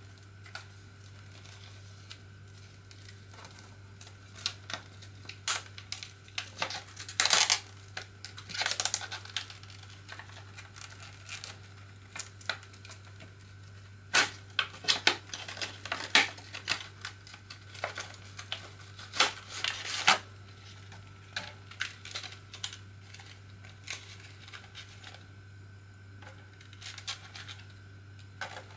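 Plastic packaging being handled and opened: crinkling and clicking of a plastic wrapper, blister pack and clear plastic box, in irregular clusters of sharp crackles that are loudest about a quarter of the way in and again through the middle. A steady low hum runs underneath.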